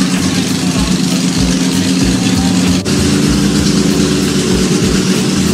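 A vintage racing car's engine running at a steady fast idle, a low even note. The note shifts slightly about three seconds in.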